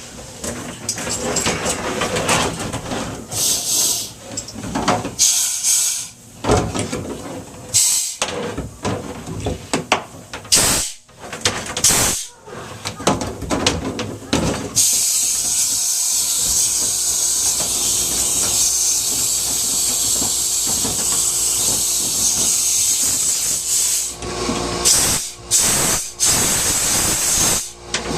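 Rustling, scraping and knocking as a dryer vent pipe is worked loose and handled. From about halfway, a steady hiss runs for roughly ten seconds, then the handling noises return near the end.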